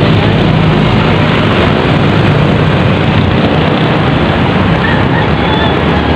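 Steady noise of road traffic passing on a wet road, with a low engine hum under it.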